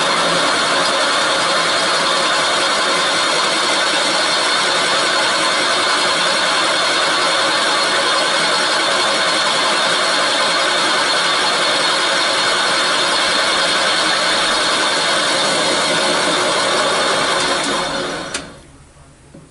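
A valve seat machine's spindle turning a milling cutter as it bores the counterbore for a valve seat insert into a 1967 Honda CB77 cylinder head. It is a loud, steady machining noise with a constant whine through it, and it stops about 18 seconds in.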